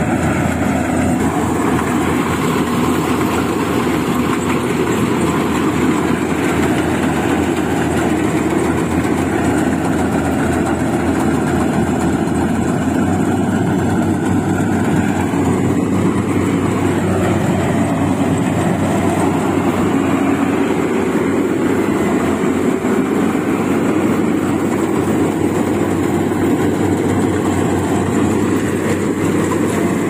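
Compact rice combine harvester running steadily while it cuts and threshes rice: an even, dense mechanical din of engine and machinery, unchanging throughout.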